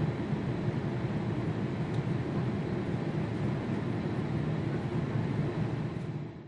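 Steady jet airliner noise: a low, even rumble that fades out right at the end.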